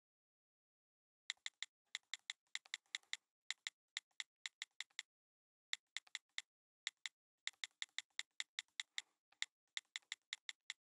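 Computer-keyboard typing: light, quick key clicks in irregular runs of several a second, starting about a second in and stopping just before the end.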